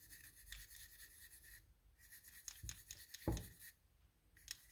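Faint, quick scratchy rubbing strokes of a small carburetor part being scrubbed clean by hand, with two dull knocks near the middle.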